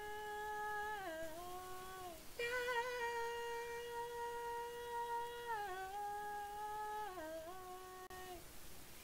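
A woman's voice singing one harmony line a cappella for a stacked multi-track vocal. She holds long, steady notes that step down in pitch, with a short breath after about two seconds, and stops shortly before the end.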